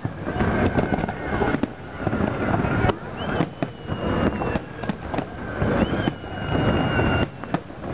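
Aerial fireworks shells bursting in a rapid barrage, many overlapping bangs over a continuous rumble. Twice, about three and six seconds in, a high whistle rises briefly and then holds steady for over a second.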